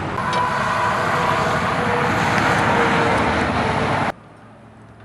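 Loud, steady outdoor rushing noise with a faint wavering hum, which cuts off abruptly about four seconds in, leaving a much quieter background.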